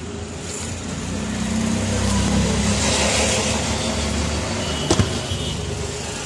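A motor vehicle passing close by: its engine hum swells over the first few seconds and then fades. A couple of sharp clicks come about five seconds in.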